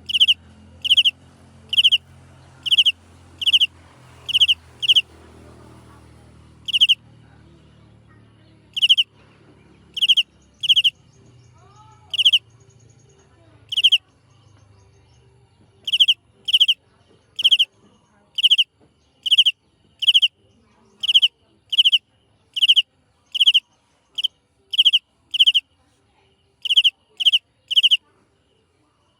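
A small animal calling loudly: short, high-pitched single notes repeated about once a second, with a few brief pauses.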